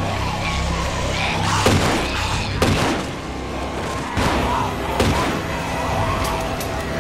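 TV drama soundtrack: four sharp bangs or hits, about two, three, four and five seconds in, over tense background score and walkers' snarls.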